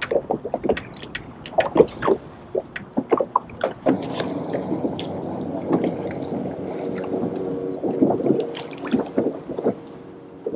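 Small waves slapping and splashing irregularly against a boat hull. A steady low hum joins them about four seconds in and fades near the end.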